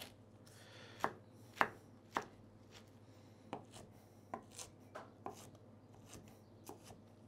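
Knife cutting grilled lettuce into small strips: three sharper chops in the first couple of seconds, then a run of softer, spaced cuts.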